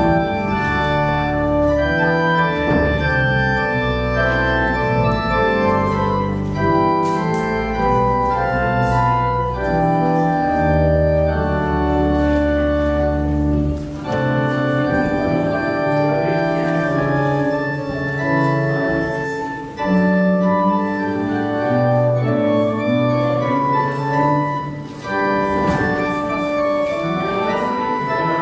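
Church organ playing held chords over a deep sustained pedal bass, with short breaks between phrases.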